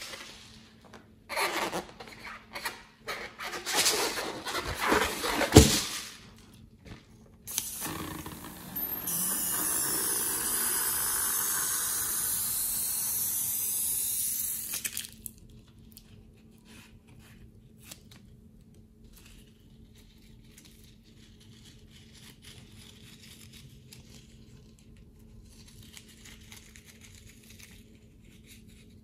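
Slime with foam beads being stirred and squished in a glass bowl: irregular wet scraping and squelching for the first few seconds. Then a steady hiss for about six seconds, followed by faint handling noises.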